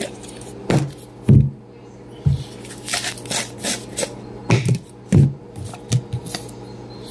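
Peanut butter and marshmallow fluff jars being handled on a tabletop: a series of irregular knocks and clicks, with rubbing and scraping in between.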